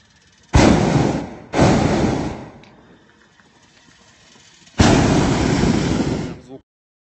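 Hot air balloon's propane burner firing overhead in three blasts of roaring noise: two short ones back to back in the first couple of seconds, then a longer one of nearly two seconds that cuts off suddenly near the end.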